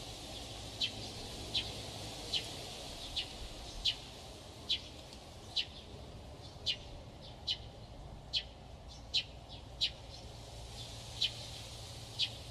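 A bird giving short, high single chirps, repeated at a steady pace of a little more than one a second, over a faint, steady low background noise.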